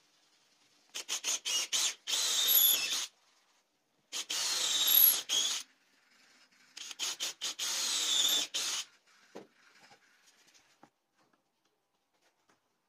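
18-volt cordless drill boring holes into a wooden board with a wood bit: three runs of about two seconds each. The first and last runs begin with a few short trigger pulses before the motor runs steadily.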